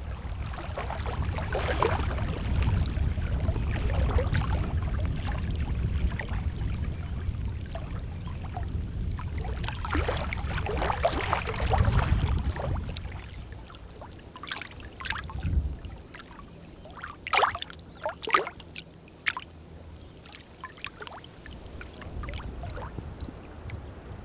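Lake water lapping and splashing at the shoreline, with wind rumbling on the microphone through the first half or so. A few short, sharper splashes come in the second half.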